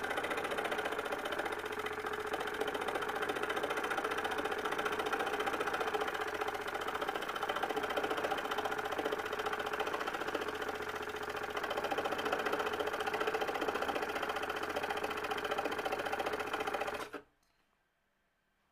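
Electric scroll saw running, its reciprocating blade cutting slowly along a line through a wood board with a steady, fast buzz. The sound stops suddenly near the end.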